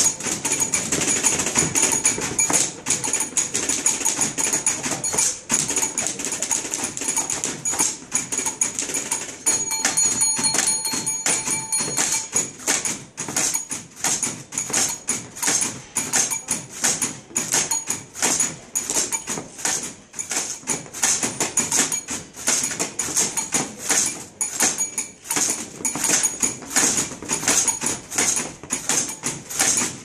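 Several manual typewriters played together as a percussion ensemble: fast, rhythmic clattering of keys and typebars. A ringing tone holds for a couple of seconds about ten seconds in.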